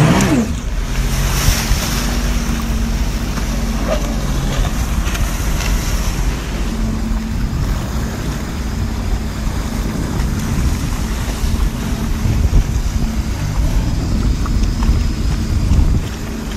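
Jet ski engine running at speed, with water spray rushing off the hull and wind buffeting the microphone. The level drops a little near the end.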